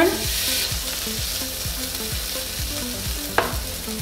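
Corn kernels sizzling and crackling in a dry, preheated cast-iron skillet, being charred without oil and stirred with a wooden spoon. A single sharp knock about three and a half seconds in.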